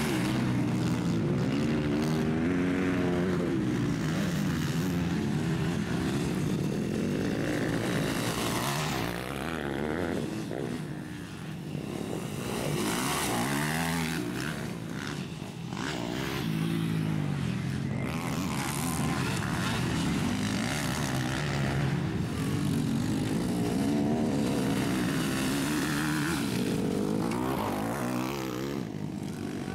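MX2-class motocross motorcycles racing past on a dirt track, their engines revving up and dropping off again and again as the riders accelerate and shift. There is a brief lull about eleven seconds in.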